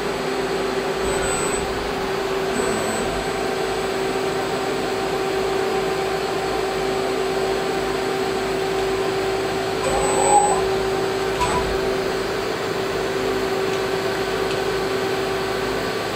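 Yama Seiki SW32 CNC Swiss lathe running with a steady humming drone and a held tone while its upper tool slide is jogged on its ball screws. The slide itself makes almost no sound, a sign of ball screws in good condition. There is a small bump about ten seconds in.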